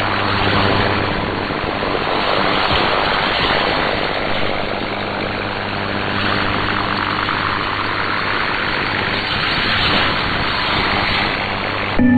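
Shortwave radio reception from an SDR receiver: a steady hiss of static with a low hum underneath. Just at the end it switches abruptly to a steady musical tone.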